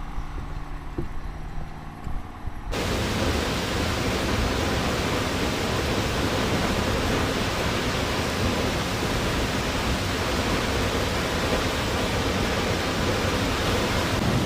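Steady rushing roar of a waterfall, a dense even noise that comes in suddenly about three seconds in after a quieter stretch.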